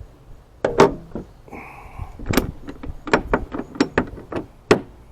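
Aftermarket billet aluminum hood latch on a Jeep Gladiator being latched and released to check its alignment: a series of sharp metal clicks and clunks, the loudest about a second in and near the middle.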